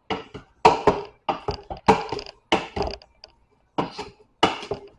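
Boiled potatoes being mashed by hand in a pot: a run of sharp knocks, about two a second, as the utensil strikes down through the potatoes against the pot, each knock with a short ring, pausing briefly a little past the middle.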